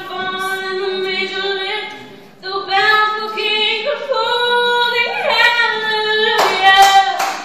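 A woman singing solo and unaccompanied into a microphone, holding long notes, with a short break for breath about two seconds in. Near the end, applause starts under her last held note.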